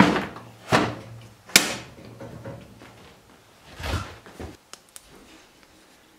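Clunks and rattles of parts being handled on a Honda FourTrax ATV while getting at its battery: a few sharp knocks, the loudest about a second and a half in, and a cluster of clatter near four seconds.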